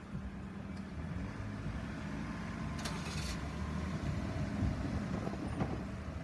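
Steady low hum of vehicle engines running, with a brief hiss about three seconds in.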